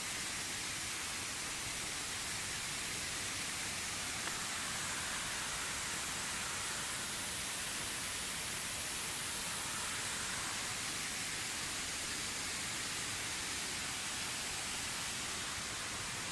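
Steady rushing of a waterfall, an even hiss with no change in level.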